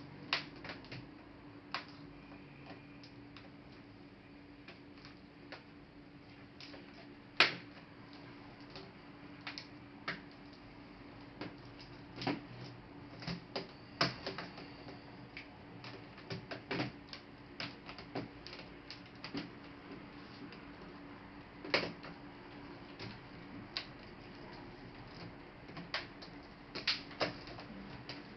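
Irregular small clicks and taps of a Dell Inspiron N5110 laptop's plastic and metal parts being handled and worked on during disassembly, with a faint steady hum under them.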